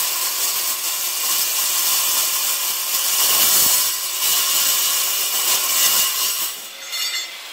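8-inch Milwaukee metal-cutting circular saw cutting through 3/16-inch steel plate: a loud, steady screech with a high whine. The sound drops away suddenly near the end as the cut finishes.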